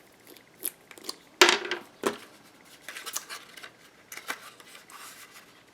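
Paper and small craft tools being handled: scattered light clicks and rustles, the sharpest about a second and a half in.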